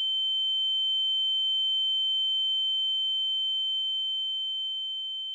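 Steady high-pitched electronic beep, a single held tone added in editing in place of speech, swelling slightly and then fading toward the end.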